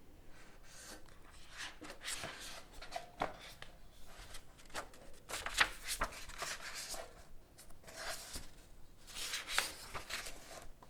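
Comic book pages being turned and handled: irregular paper rustles and swishes, the loudest about halfway through.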